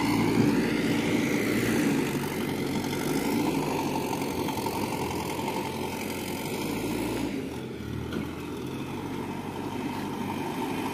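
Tata Signa 5530 truck's heavy diesel engine running at low speed as the truck maneuvers slowly. It is a steady low hum that eases off a little about two seconds in and again near the three-quarter mark.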